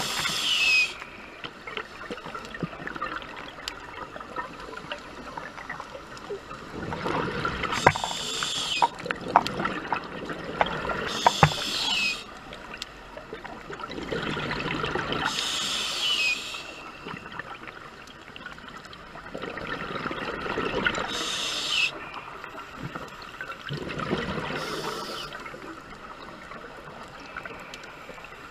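Scuba diver breathing through a regulator underwater: a repeating cycle of hissing inhales and bubbling exhales, about five breaths over the stretch, each a few seconds long with quieter gaps between.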